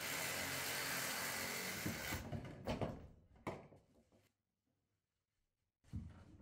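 Black ABS plastic drain pipe being handled: a steady scrape for about two seconds as it slides, then a few knocks, and a last knock near the end.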